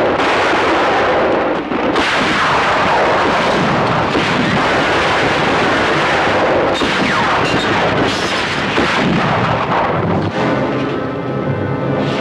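Sustained heavy gunfire from a western's soundtrack, the shots running together in a dense, echoing barrage, with a few falling whines about seven seconds in. Music comes in near the end.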